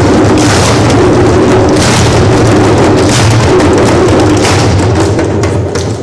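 Loud, dense drumming by a group playing drums together, tailing off near the end.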